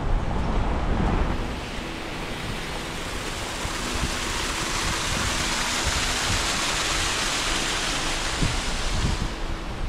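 Small waterfall splashing down a mossy rock face: a steady rushing hiss that swells a little partway through and eases near the end. A low rumble runs under it for the first second or so.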